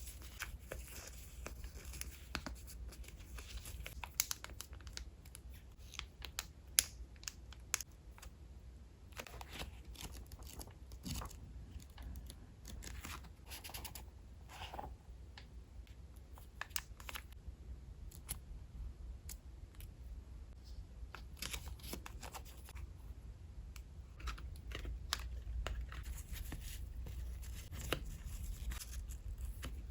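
Paper collage materials being handled and torn, a string of irregular short, sharp crackles and snaps.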